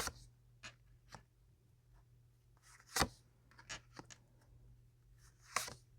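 Tarot cards being handled on a table: a few short, soft slaps and rustles, the loudest about three seconds in, over a faint low hum.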